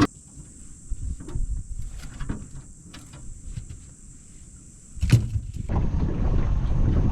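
Scattered knocks and clunks in a small boat, then a loud knock about five seconds in. After it the steady low rumble of the boat under way begins, with wind on the microphone.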